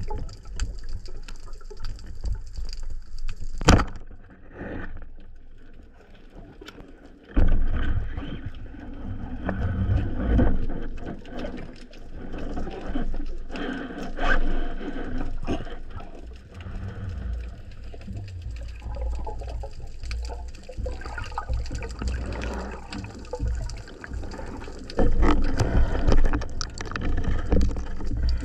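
Water rushing and sloshing over an underwater camera housing, an uneven low rumble that rises and falls. About four seconds in there is one sharp click, then the water noise drops for a few seconds and comes back suddenly and louder.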